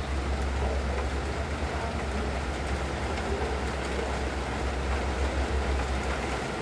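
Moderate rain falling steadily, an even hiss, over a constant low rumble.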